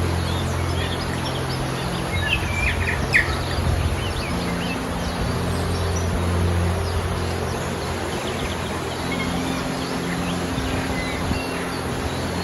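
Mountain stream rushing steadily, with small birds chirping over it, a quick cluster of calls about two to three seconds in. Low held notes sit underneath and change twice.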